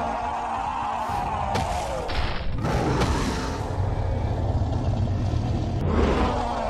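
Cartoon fight soundtrack: a few sudden booming hits and swishes over a steady low rumble and background music.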